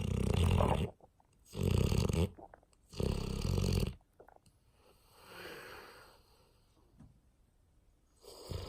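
English Mastiff snoring in deep sleep: three loud, rattling snores in the first four seconds, then a softer breath, a quiet stretch, and another snore starting near the end.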